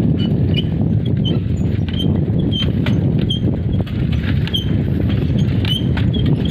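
Wind buffeting the microphone while moving along a road, a loud steady rumble, with short high chirps repeating irregularly about every half second and faint clicks.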